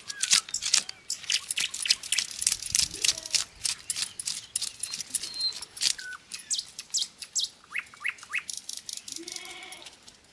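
A knife scraping the scales off a whole fish: quick rasping strokes, several a second, easing off near the end. Birds chirp in the background.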